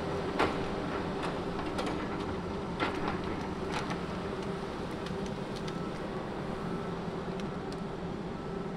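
Diesel engines of a John Deere grapple skidder and a knuckleboom log loader running steadily. A few sharp knocks come in the first few seconds, the loudest about half a second in.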